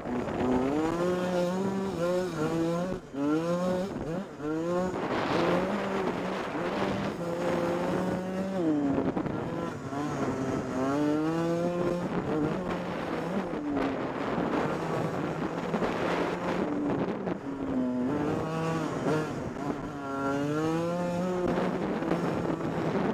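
125cc dirt bike engine revving hard through the gears: its pitch climbs quickly and drops back at each shift, over and over, with a few longer held stretches.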